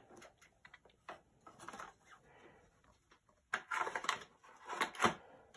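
Handling noise: light clicks and taps as knives are moved about on a leather mat, then two louder rustles about three and a half and five seconds in.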